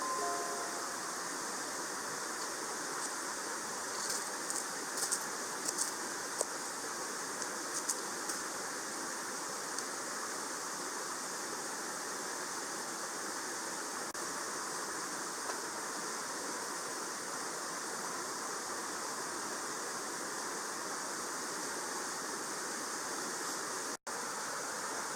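Steady rushing of a mountain stream, with a few short faint clicks about four to eight seconds in.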